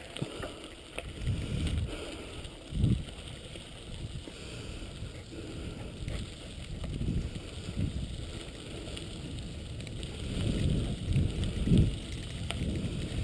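Wheels of a dog-powered mushing rig rolling over a gravel road, with wind buffeting the microphone in irregular low rumbles, strongest about three seconds in and again near the end.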